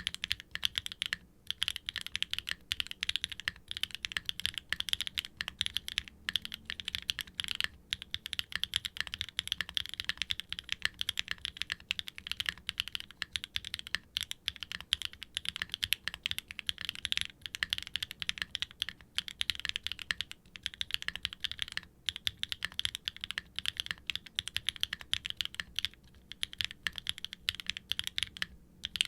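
Fast continuous typing on a mechanical keyboard with Gateron Milky Yellow Pro V3 linear switches (full POM housings, 50 g springs, factory lubed) and ABS keycaps, in an aluminium case with a brass weight and an FR4 plate and no dampening foam. Brief pauses break the run of key strokes now and then.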